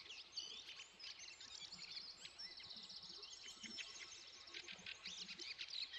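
Faint birdsong: several small birds chirping and twittering at once, with quick rising-and-falling whistles and a rapid trill in the middle.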